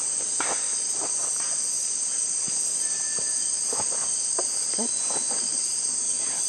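Amazon rainforest insect chorus: a steady, high-pitched shrill of many insects with a faster pulsing trill above it, and a few faint scattered clicks and rustles.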